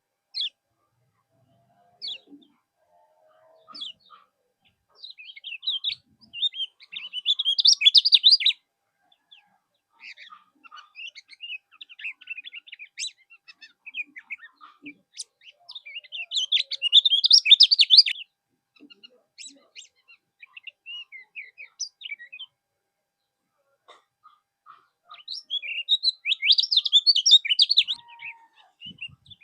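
Kecial kuning singing: fast, chattering high-pitched song phrases, three loud bursts spread through the stretch with quieter twittering and short pauses between.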